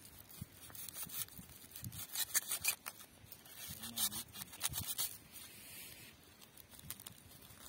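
Paper and aluminium foil crinkling and scraping as a pocketknife cuts into a foil-wrapped fish, in a run of quick rasping strokes, thickest between about two and five seconds in.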